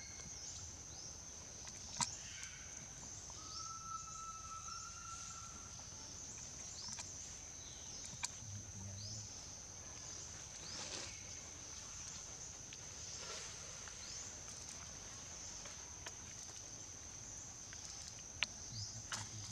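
Outdoor ambience of a steady high-pitched insect drone, with short high falling chirps scattered over it and a few sharp clicks, about three in all.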